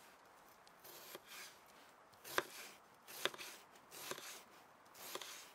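Chef's knife slicing an onion into half rings on a wooden cutting board: separate faint cuts, each ending in a sharp tap of the blade on the board, about one a second.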